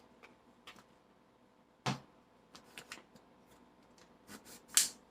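Scattered light clicks and knocks of kitchen items being handled, with a sharp knock about two seconds in and a louder cluster of clicks near the end.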